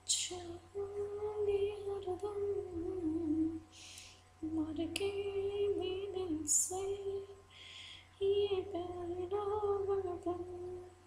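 A woman humming a tune to herself, holding long notes that bend slightly in pitch, in four or five phrases with short breaks and breaths between them.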